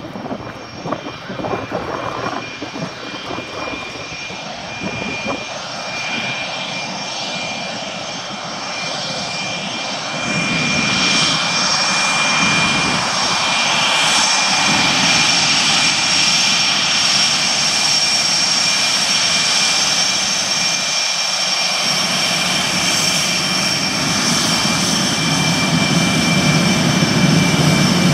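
CF-18 Hornet's twin General Electric F404 turbofans at taxi power: a steady high whine with several held tones, growing louder about ten seconds in as the jet taxis closer.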